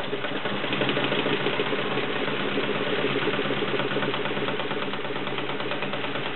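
Vintage Kenmore model 1422 all-metal sewing machine running steadily while sewing a multi-point zigzag stitch, with a fast, even stitching rhythm. The bobbin is a little noisy, which the owner says is nothing wrong with the machine.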